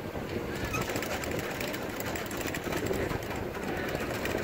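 Water rushing and splashing along a sailboat's hull, with wind buffeting the microphone, as a steady noisy hiss with rapid flutter.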